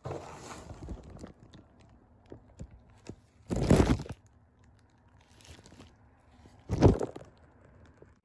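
Cardboard box of cylinder head bolts handled and its lid flap lifted, crunching and crinkling; two louder bursts of rustling, one about halfway through and one near the end.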